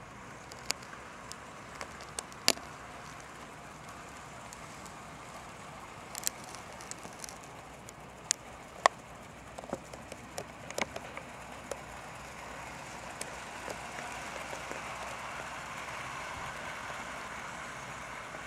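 Hornby OO-gauge model locomotive and coaches running on the track: a steady light whirring that grows louder near the end, with scattered sharp clicks.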